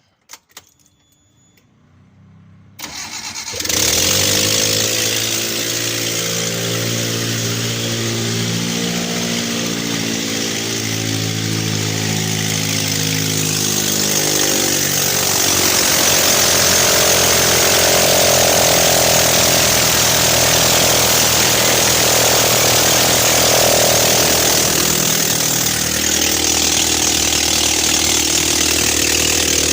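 Chana Star van engine cranked and catching about three seconds in, then running. Its speed rises and falls unevenly at first, then settles into a steady run.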